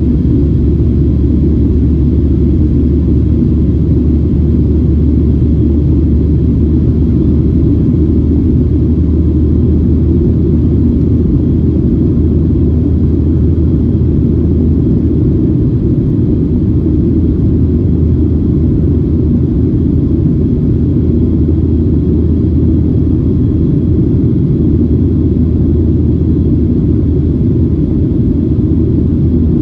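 Cabin noise of a Boeing 737-700 in its climb after takeoff: the CFM56-7B engines and rushing air make a loud, steady low rumble inside the cabin at a window seat over the wing.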